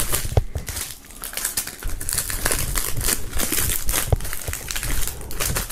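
Thin plastic shrink-wrap film crinkling as CD jewel cases wrapped in it are handled, with a few sharp clicks of hard plastic.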